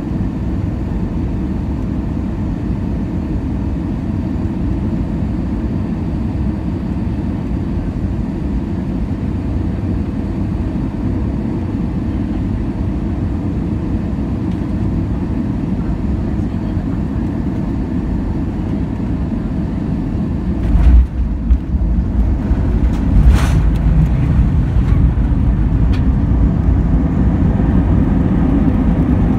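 Airbus A320 cabin noise on final approach: a steady low rumble of engines and airflow. About two-thirds of the way through the main wheels touch down with a thump, and the rumble turns louder and rougher as the jet rolls out on the runway with its spoilers up, with a couple of sharp knocks along the way.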